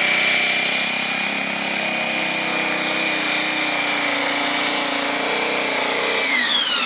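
Engine of a Jeep Forward Control pulling truck held at high revs under full load while dragging a weight-transfer sled. About six seconds in, the revs fall away sharply as the throttle is released and the pull ends.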